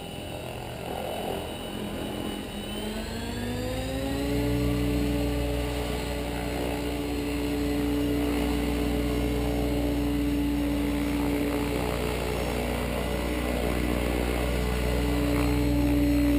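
Electric 700-size RC helicopter (Agile 7.2 with a Pyro 750-45 motor) hovering. The motor and rotor whine rises in pitch over about a second, about three seconds in, as the governed headspeed steps up, then holds steady.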